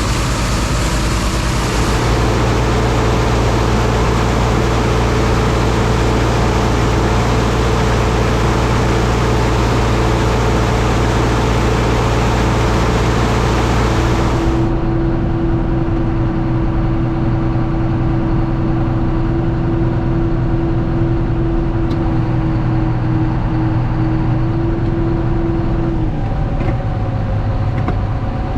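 Tractor engine running steadily, driving a PTO grain auger that carries soybeans into a bin, with a rushing hiss over the engine. About halfway the sound switches suddenly to a different steady engine sound with a high whine, which drops in pitch near the end.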